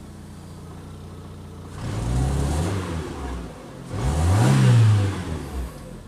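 Fiat Punto mk2's 1.2 16v four-cylinder petrol engine idling roughly, then blipped twice: each rev rises and falls back to idle, the second higher and louder than the first.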